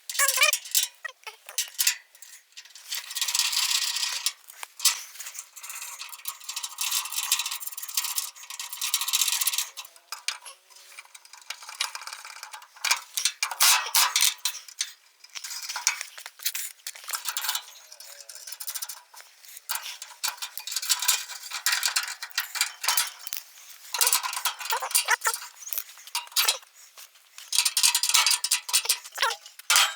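Irregular light metallic clinking and clicking, dense at times and sparser at others.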